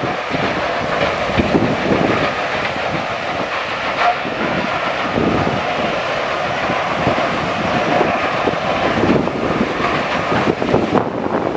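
Continuous heavy mechanical clatter and rumble, dense with irregular knocks and bangs, at a steady high level.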